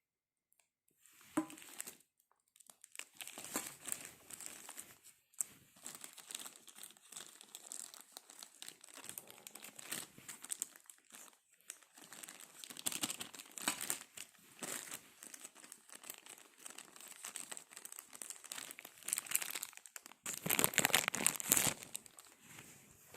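Watch packaging being crinkled, rustled and torn by hand in irregular bursts, loudest near the end.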